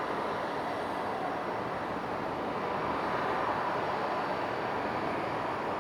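Jet airliner engines heard across the airfield: a steady rushing noise that swells slightly about three seconds in.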